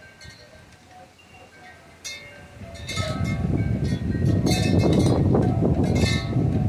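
Wind chimes ringing in a thunderstorm. About two seconds in, a strong wind gust builds, loud on the microphone, and the chimes clang harder before the gust eases near the end.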